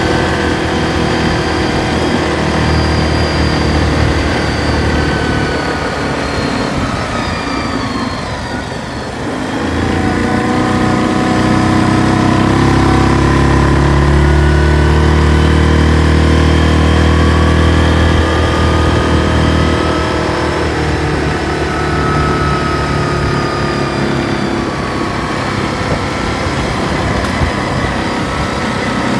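Yamaha ATV engine running while riding. Its pitch drops about a quarter of the way in, then climbs again and holds louder for several seconds before easing off.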